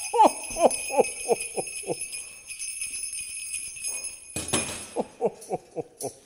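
Sleigh bells jingling, with a louder shake a little past four seconds. Two quick runs of short falling notes sound over the bells, one at the start and one about five seconds in.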